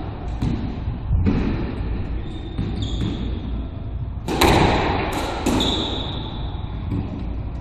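Squash rally: the ball is struck by racquets and smacks off the court walls, echoing in the enclosed court, with short shoe squeaks on the hardwood floor. The loudest smack comes a little past halfway.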